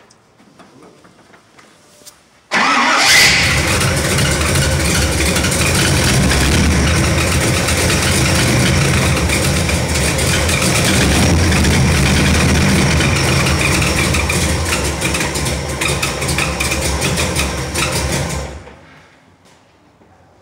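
Car engine fitted with a brand-new camshaft and running on break-in oil: it catches suddenly about two and a half seconds in, runs loud and steady for about sixteen seconds, then is shut off.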